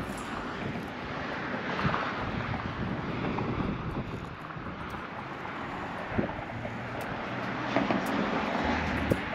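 Outdoor background noise: wind on the microphone and passing traffic, swelling and fading a couple of times, with a few light clicks.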